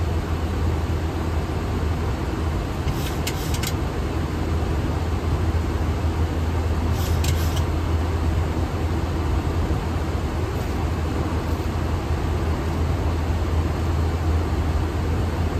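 Steady flight-deck noise of a Boeing 737-800 in flight: an even rushing of airflow and air conditioning over a low hum. A few brief clicks come about 3 seconds in and again about 7 seconds in.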